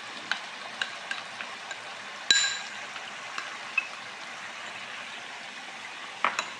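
Blended onion and garlic paste frying in oil in a non-stick wok: a steady sizzle with scattered crackles. One sharp, ringing clink comes about two seconds in, and two light knocks come near the end.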